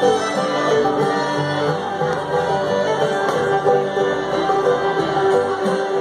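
Live acoustic bluegrass band playing an instrumental break without singing: fiddle, banjo, acoustic guitar and upright bass together.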